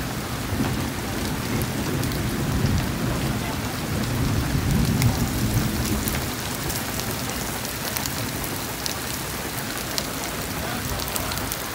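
Heavy rain pouring down steadily, with a low rumble of thunder through the first half that then eases off.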